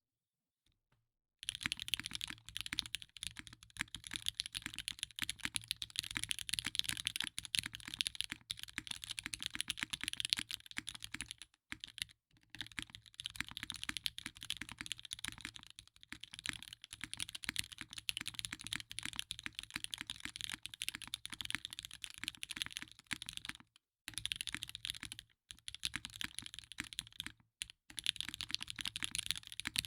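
Steady fast typing on a Merisi Sessantacinque custom mechanical keyboard with lubed Gateron X linear switches on a carbon fiber plate, the keys clacking in a dense run. It starts after about a second and a half of silence, with a few short breaks along the way.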